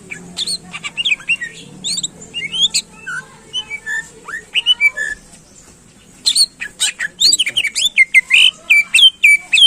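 Greater green leafbird (cucak ijo) singing a loud, varied string of short whistled and chattering notes. The notes are spaced out at first, then come in a fast, dense run over the last few seconds.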